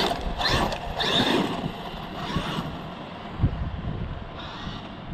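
Brushless electric motor of a large Traxxas RC truck whining up and down in quick throttle blips, then running more quietly. There is a single sharp knock about three and a half seconds in.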